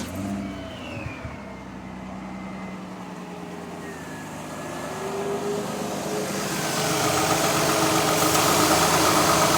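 2003 Mazda Tribute's V6 engine running at idle just after a restart, with a misfire that the owner blames on oil from leaking valve covers getting into the spark plug wells and letting the ignition coils arc. The engine sound grows louder in the second half.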